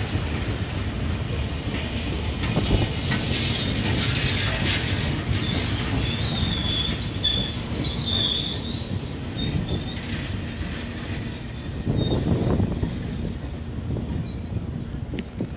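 Amtrak double-deck passenger train rolling past, a steady rumble of wheels on rail. A thin, high wheel squeal comes in a few seconds in and holds on as the last cars go by.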